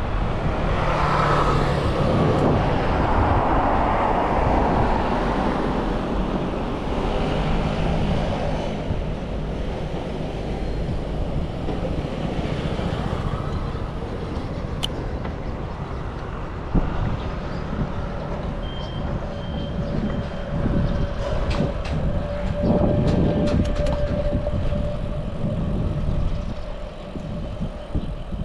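Wind noise and road rumble on an action camera riding along on a moving mountain bike, with motor vehicles passing, loudest in the first few seconds and again about three quarters of the way in.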